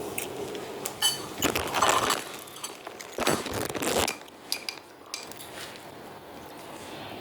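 Tofu slime being squished and stirred for ASMR: two bursts of wet crackling, about one and a half and three and a half seconds in, with scattered light clicks.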